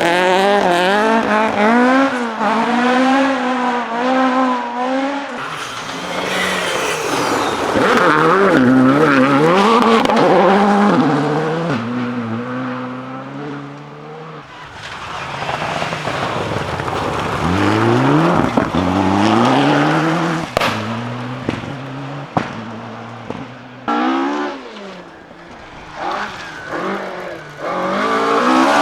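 Rally car engines driven flat out, revving hard and dropping with each gear change and lift as the cars pass. The sound dies down about halfway, builds again as another car comes through, and a few sharp cracks come about two-thirds of the way in.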